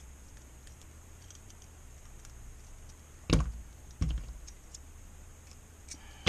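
Light clicks and taps from handling the small metal parts of an LCD panel's frame, with two sharper knocks about three and four seconds in.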